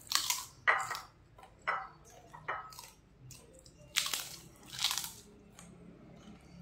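Close-up crunching bites and chewing of crisp white crackers: about six sharp crunches, the loudest near the start and again about four and five seconds in.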